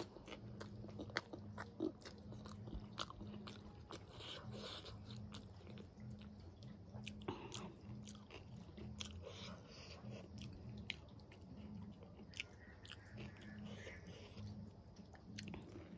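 Close-miked chewing of a mouthful of rice and dal eaten by hand, with many short wet clicks and smacks of the mouth, and soft squishes of fingers mixing rice on a steel plate.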